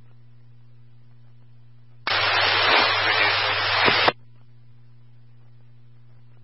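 Police radio scanner audio: about two seconds in, a burst of loud radio static lasting about two seconds cuts in and stops abruptly, a transmission with no voice heard in it. A steady low electrical hum runs underneath.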